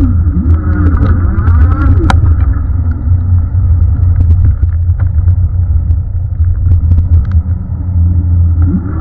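Lankeleisi MG740 Plus e-bike riding fast over a pump track. A loud, deep rumble of wind and tyres on asphalt runs throughout. In the first two seconds a whine rises and falls in pitch with speed over the rollers. Small rattles and a sharp click about two seconds in.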